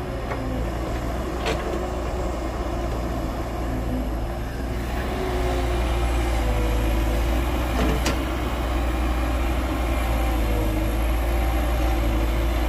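Heavy diesel earthmoving machine running steadily, with two sharp knocks, one about a second and a half in and one about eight seconds in. The engine grows louder about halfway through.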